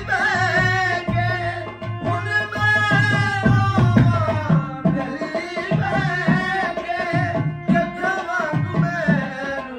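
A man sings a Sufi devotional song in a bending, ornamented line, accompanied by sustained harmonium chords and a steady hand-drum beat.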